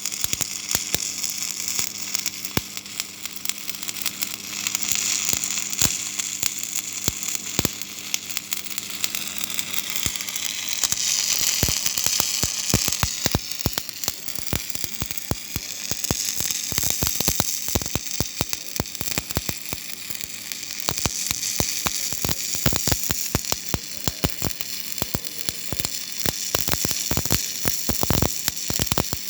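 Stick welding with a 7018 electrode: the arc sizzles steadily, with dense, irregular crackling pops.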